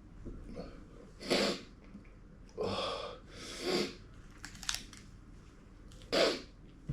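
A man chewing and blowing out short, forceful breaths, four of them, from the burn of a very hot chilli product.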